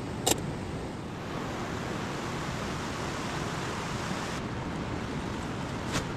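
Mountain stream rushing steadily, a constant even wash of water noise, with a sharp click about a third of a second in and another near the end.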